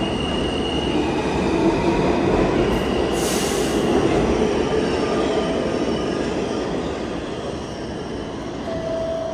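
Subway train noise in a station: a steady rumble with faint high squealing tones and a short burst of hiss about three seconds in.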